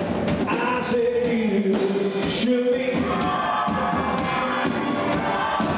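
Country band music with a singer, sustained sung notes over instruments and drum hits.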